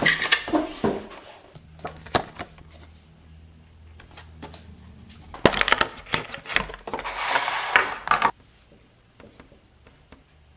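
Product packaging being handled and opened: a run of sharp clicks and crinkling rustles, with a longer rustle near the end that stops abruptly.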